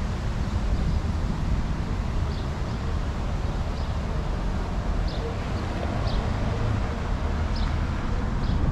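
Downtown street ambience: a steady low rumble of traffic and wind on the microphone, with short high chirps every second or so.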